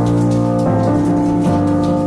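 Instrumental music of held chords that change about every second, over rain falling.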